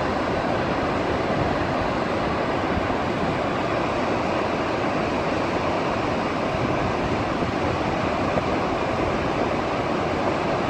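Muddy floodwater pouring over a wide cliff-edge waterfall: a steady, dense rush of falling water that does not let up.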